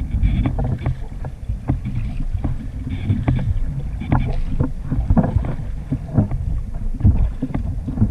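Kayak being paddled with a double-bladed paddle: irregular splashes and knocks of the blades entering the water, several a second, over a constant low rumble of wind on the microphone.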